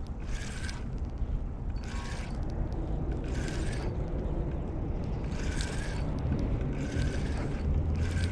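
Spinning reel cranked in short spurts, each about half a second and coming about every 1.5 s, as a lure is retrieved with pauses. A steady low rumble runs underneath.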